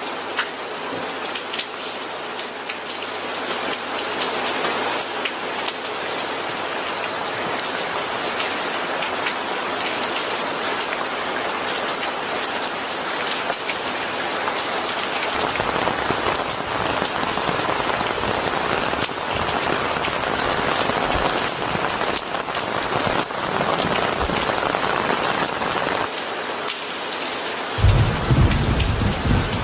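Steady rain falling on a surface, with a low rumble joining about halfway through and a louder roll of thunder breaking in near the end.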